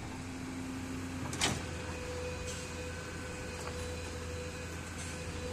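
L&T-Komatsu hydraulic crawler excavator running steadily while digging, with a low engine hum and a steady whine that shifts higher about a second and a half in, together with a single sharp knock.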